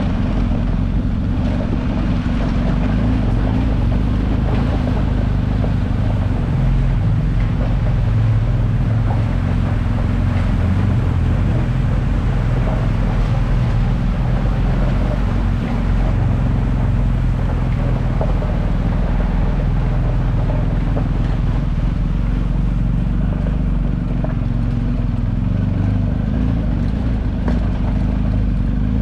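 BMW GS adventure motorcycle's boxer-twin engine running steadily under way, a continuous low rumble with no breaks.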